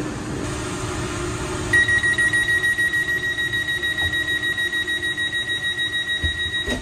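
Door-closing warning beeper on a Taiwan Railways EMU3000 train: rapid beeping at one steady high pitch, about four or five beeps a second, starting about two seconds in and stopping near the end as the door shuts, over a steady low hum.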